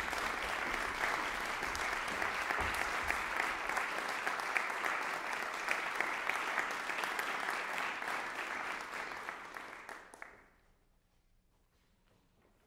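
Audience applauding, the clapping dying away about ten seconds in.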